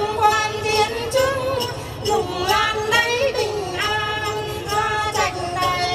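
Hát then singing: women's voices singing together over plucked đàn tính long-necked lutes, with small bells jingling.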